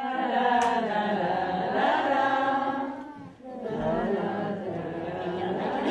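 Voices singing long, held, chant-like notes, pausing briefly a little past halfway before going on.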